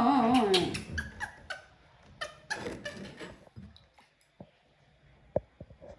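Baby monkey giving a thin, wavering whimpering call that ends under a second in, followed by soft scattered clicks and wet smacks of it chewing grapes.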